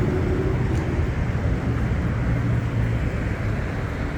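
Steady low rumble of a motor vehicle running close by amid street traffic, with a faint engine hum.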